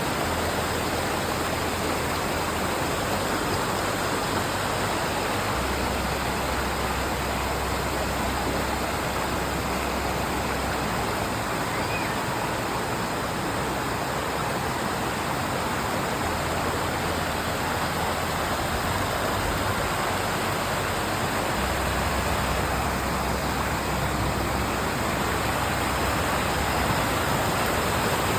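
Waterfall: a steady, unbroken rush of falling water. Low held bass notes sit underneath it, changing every few seconds like a slow background music drone.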